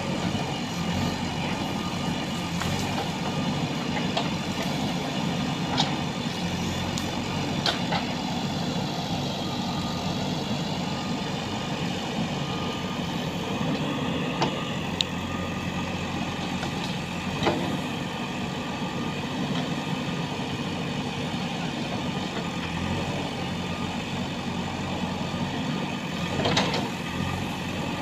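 JCB 3DX backhoe loader's diesel engine running steadily under load as the backhoe arm works, with occasional sharp cracks and knocks scattered through, a couple of louder ones near the end.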